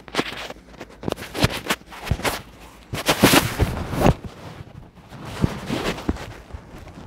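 Footsteps on sandy ground, with irregular scuffs and rustles that are loudest about three to four seconds in.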